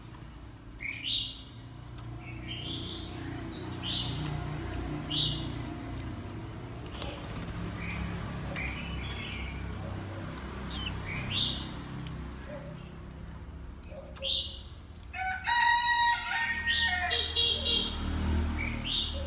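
Caged oriental magpie-robin giving short rising chirps, one every second or so. About fifteen seconds in comes a louder, longer call of several held tones stacked together.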